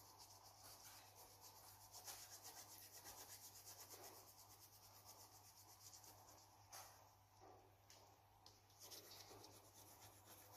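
Faint, rapid scratching of a coloured pencil shading on paper in quick back-and-forth strokes, thinning out to a few separate scratches in the second half.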